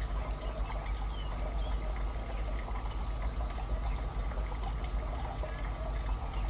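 WAP-7 electric locomotive and its train approaching from a distance: a steady rushing rumble of wheels on rail with faint steady hums.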